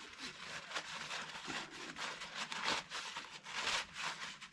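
Faint scratchy rustling and scraping in short, irregular bursts from hands working on a greasy front wheel hub: handling the hub parts and wiping off grease.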